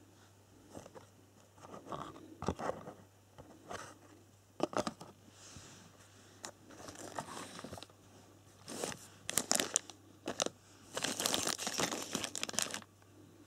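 Clear plastic parts bags crinkling and rustling as they are handled, in short scattered bursts with a few sharp clicks, then a longer stretch of rustling near the end.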